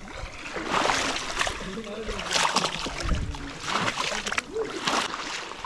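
Legs wading through thigh-deep swamp water, splashing and sloshing with each stride, about four strides surging roughly every second and a half.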